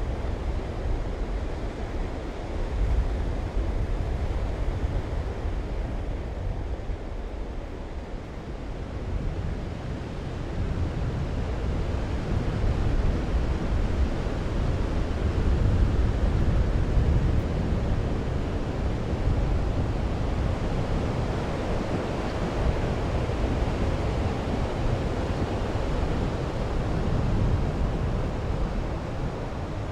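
Sea waves washing and surging, with wind rushing on the microphone; a steady rush that swells to its loudest about halfway through.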